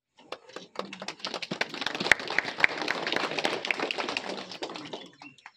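A small group clapping hands: scattered applause that thickens after about the first second and dies away near the end.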